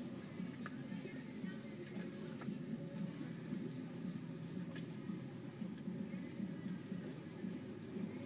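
Steady high-pitched insect chirping, several quick chirps a second, over a low hum.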